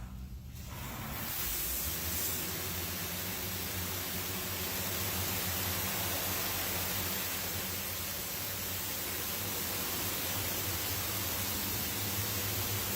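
Automatic car wash machine running: a steady hiss that comes up about a second in and holds, over a low machine hum.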